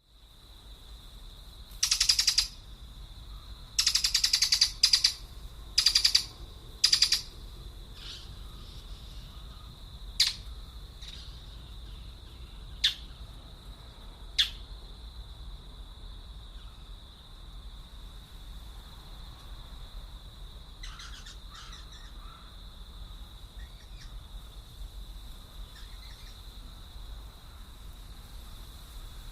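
Birds calling: five loud, harsh, crow-like calls in the first seven seconds, then three short sharp calls and a few faint chirps later, over a steady high-pitched tone.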